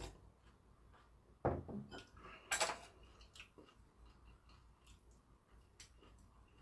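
Quiet tableware sounds while eating: a ceramic bowl set down on a wooden table about a second and a half in, then a sharper clink of metal chopsticks against the dishes, followed by a few small ticks of chopsticks picking at food.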